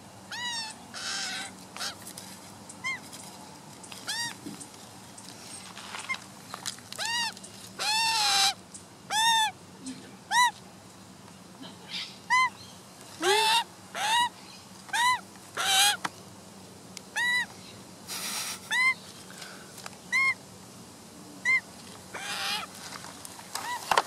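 Juvenile Australian magpie calling repeatedly at close range: short arched squawks, roughly one a second with a few pauses, and some harsher, noisier rasps among them.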